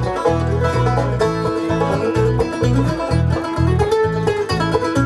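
Live bluegrass band playing an instrumental break with no singing: banjo, mandolin and guitar picking over a steady bass line.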